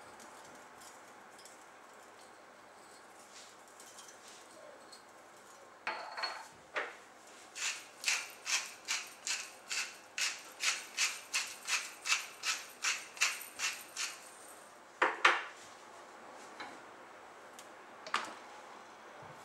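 Black pepper being dispensed over a raw chicken in a run of about sixteen quick, dry, rasping strokes, two or three a second, followed by a couple of louder knocks.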